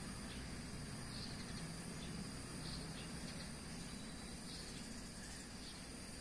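Steady high-pitched insect trill with a few short bird chirps, over a low steady rumble.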